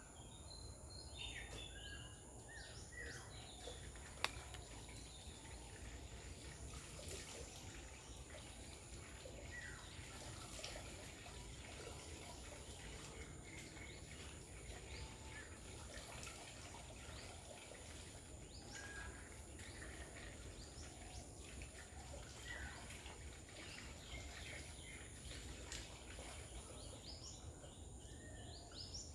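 Faint garden ambience with scattered short bird chirps over a steady low rumble and a thin, steady high-pitched tone. There is a single sharp click about four seconds in.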